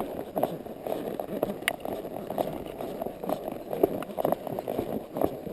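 Quarter Horse mare walking, her hooves thudding on the trail at an uneven pace of about two steps a second, heard through the rider's chest-mounted camera.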